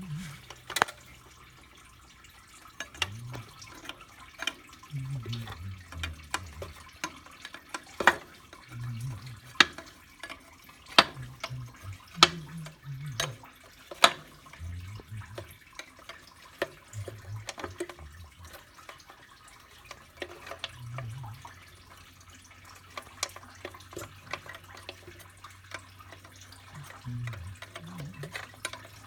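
Irregular metallic clinks and knocks of hand tools working on fittings and tubes, with some dull low bumps of parts being handled. A faint steady low hum comes in about two-thirds of the way through.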